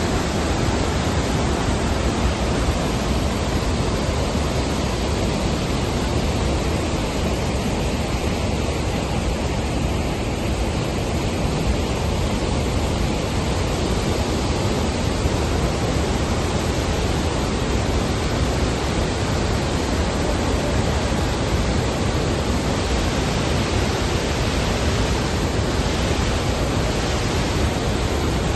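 Dassam waterfall pouring down: a loud, steady rush of water noise with no break or change.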